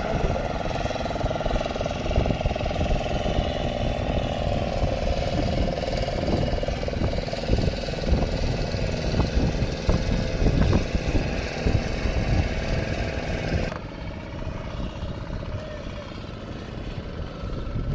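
A motor engine running steadily with a low rumble. About three-quarters of the way through, the sound changes abruptly and becomes quieter.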